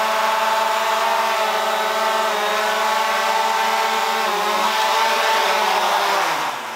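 DJI Mavic Air 2 quadcopter hovering on its stock propellers: a steady whine of motors and props with several pitches together, a bit noisy. Near the end the pitch falls and the sound drops off as the drone descends to land.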